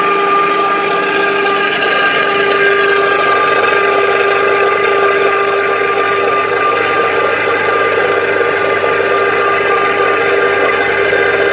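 Oil-mill machinery running steadily in a kapok seed oil press works: a loud, even whine made of several held tones over a constant hiss.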